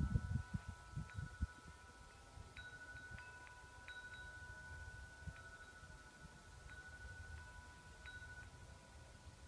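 A wind chime ringing faintly: a few light strikes, each leaving two steady high ringing tones that hang on for seconds. Low thumps on the microphone in the first second and a half.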